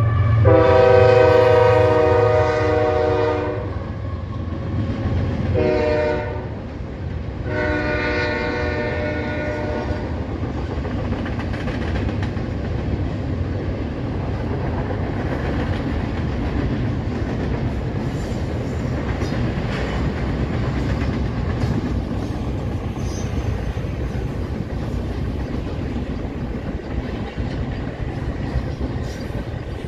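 Nathan K5HL five-chime horn on a CP ES44AC locomotive blowing a long blast, a short blast and another long blast, with a weak 1 bell. The train's steady rumble and the click of its wheels over the rail joints follow as it passes.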